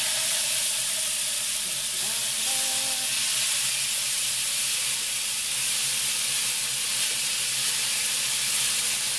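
Honey-marinated beef skewers sizzling steadily in a hot frying pan.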